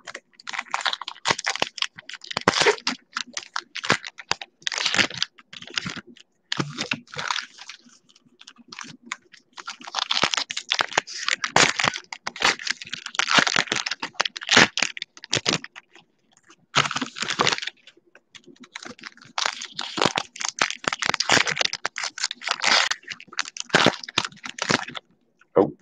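Topps Gypsy Queen baseball cards being flipped through and shuffled in the hands close to the microphone: a busy run of quick irregular clicks and rustles of card stock sliding against card, broken by a few brief pauses.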